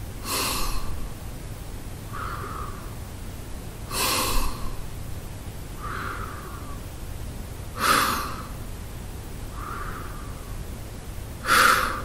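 A man breathing slowly through his mouth while resting: an even rhythm of airy breaths, about one full breath every four seconds. Each cycle has a louder breath followed about two seconds later by a softer one, four louder breaths and three softer ones in all.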